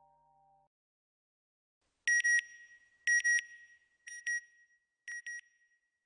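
Electronic beeper sounding a high-pitched double beep about once a second, starting about two seconds in and growing fainter with each repeat. Just before it, the last of soft background music fades out.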